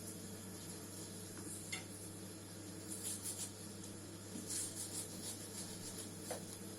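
Steady low hum of a kitchen range hood fan, with a few short, crisp crackling rustles about three seconds in and again near five seconds.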